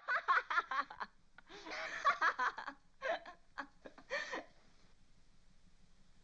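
Laughter in a run of short giggling bursts over the first four and a half seconds, then only a faint steady background hiss.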